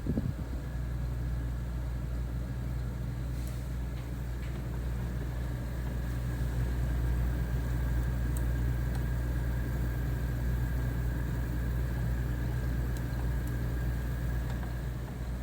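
Mitsubishi Mr. Slim ceiling-recessed four-way cassette air conditioner indoor unit running in cooling mode: a steady fan hum with a faint high whine over it.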